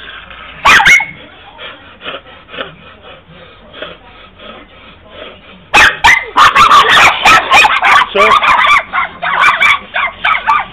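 A small dog barking over and over in a rapid, loud run from about six seconds in, after a quieter stretch broken by one short sharp sound about a second in.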